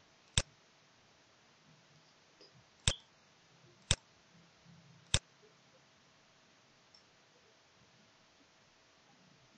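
Four sharp computer mouse clicks at uneven intervals, the first about half a second in and the last about five seconds in.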